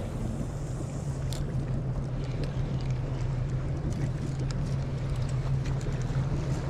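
Boat engine running steadily with a constant low hum.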